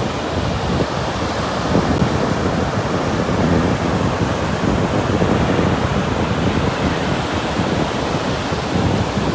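Wind buffeting the microphone in a steady rush, mixed with ocean surf.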